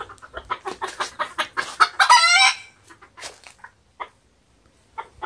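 Chickens clucking in a run of quick, short notes, then one loud, brief wavering call about two seconds in, followed by a few scattered clucks.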